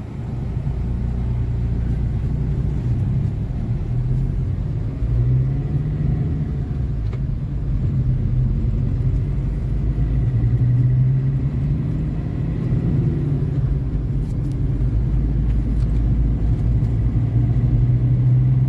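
Car engine and road rumble heard from inside the cabin while driving: a steady low rumble, with the engine note rising and falling a little.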